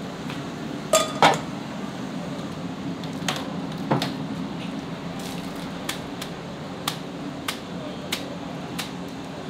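Dishes and utensils clinking. Two sharp clinks with a short ring come about a second in, two more follow a few seconds later, then lighter taps about once a second, over the steady hum of a ventilation fan.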